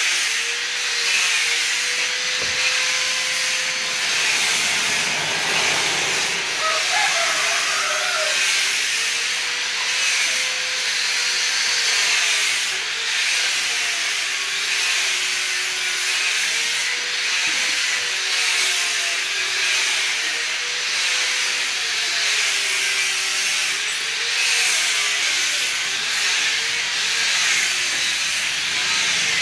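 A steady, loud hiss, with a faint tone beneath it that wavers slowly up and down.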